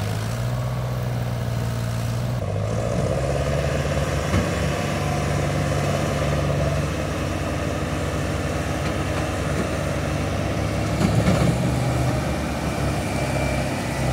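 Massey Ferguson 375 tractor's diesel engine labouring under load as it pulls a heavily overloaded sugarcane trolley. The engine note steps up and down as the throttle changes, with a brief louder surge near the end.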